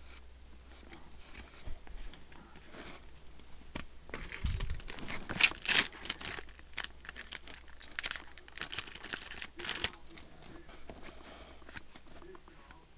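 Yu-Gi-Oh! trading cards being slid and flicked through by hand, with the crinkling and tearing of a foil booster-pack wrapper. It is a quick run of rustling clicks, busiest and loudest in the middle.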